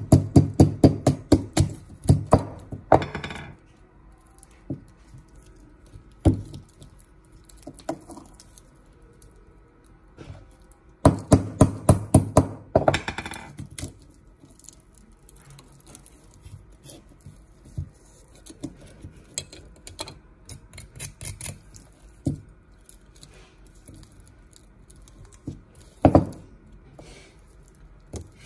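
Knocking and tapping on a hard object: two runs of quick knocks, about four a second, with a few scattered single taps between them and one loud knock near the end.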